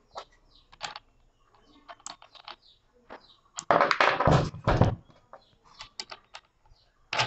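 Small clicks and clinks of the metal flange nuts being handled and fitted onto an angle grinder's threaded spindle, with a heavier knock and scrape about four seconds in as the grinder is turned over on the wooden bench.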